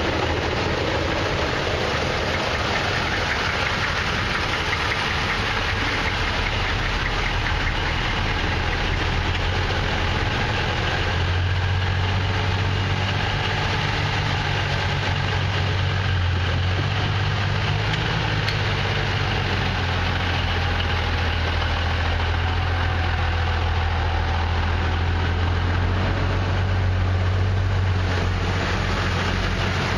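Diesel engines of military trucks driving slowly past in a line: an M1009 CUCV Blazer, then an M818 5-ton tractor truck whose low, steady engine hum becomes the loudest sound from about a third of the way in, with another CUCV arriving near the end.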